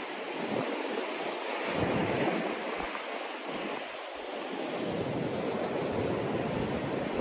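Ocean surf washing onto a sandy beach, a steady hiss, with wind buffeting the microphone in gusts from about two seconds in.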